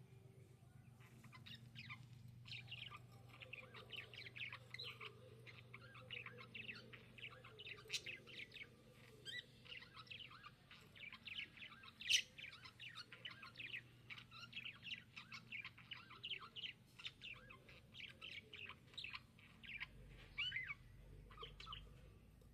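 Budgerigar chirping and chattering in a rapid, continuous stream of short high calls, with one sharp click about halfway through and a faint steady hum underneath.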